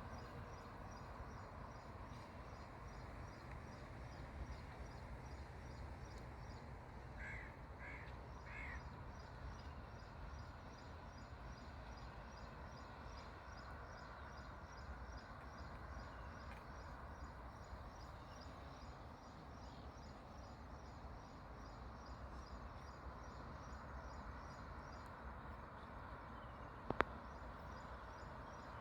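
Faint outdoor ambience: a steady background hiss and rumble with a faint, high, rapid pulsing throughout. A bird gives three short calls about seven seconds in, and there is a single sharp click near the end.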